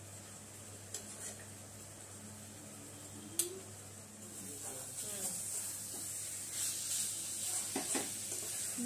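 Chicken pieces simmering in their own released liquid in a metal karahi over a gas flame, a sizzling hiss that grows louder about halfway through. A few sharp taps and scrapes of a spatula against the pan come in between.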